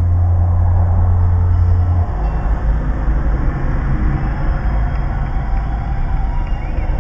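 Car engine and road noise heard from inside the cabin while creeping forward in slow traffic. A steady low hum stops about two seconds in, leaving an uneven low rumble.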